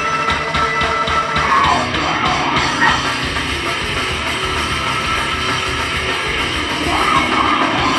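A loud live heavy rock band playing distorted electric guitars and drums, with a yelled vocal.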